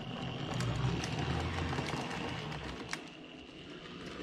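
N-scale model steam locomotive and coaches running on the layout track: a steady whirr with light, irregular clicks, fading a little after about three seconds as the train moves off.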